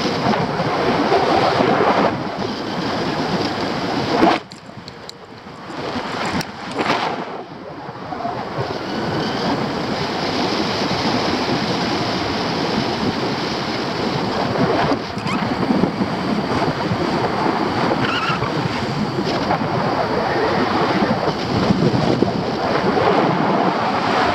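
Wind rushing over the camera microphone of a paraglider in flight: a loud, gusty rush that drops away for a few seconds about four seconds in, then returns.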